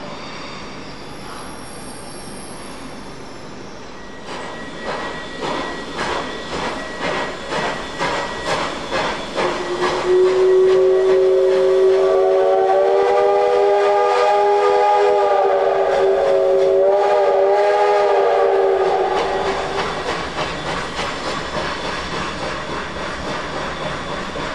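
Steam locomotive 141R 1244, a 2-8-2 Mikado, working with regular exhaust chuffs about two a second. A long steam whistle blast of several tones sounds over them for about nine seconds, wavering near its end, and the chuffing goes on after it.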